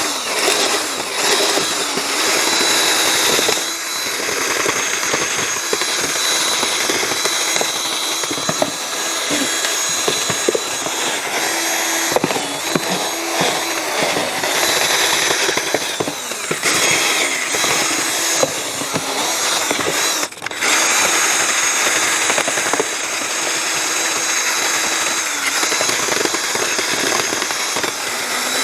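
Power drill running steadily with its bit grinding out the foam of a taxidermy deer form, briefly stopping about two-thirds of the way through.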